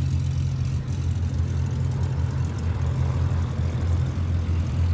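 Propeller aircraft's piston engine droning steadily at an even pitch.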